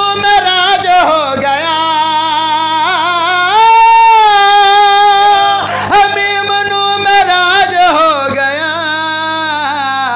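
A man singing a devotional verse solo in a long, ornamented melodic line, with one long held note from about three and a half to nearly six seconds in.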